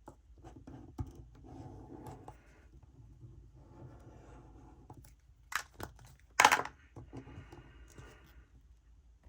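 Paper being worked with hand craft tools: several short rasping, scratching strokes on paper, and two sharp clicks a little past the middle that are the loudest sounds.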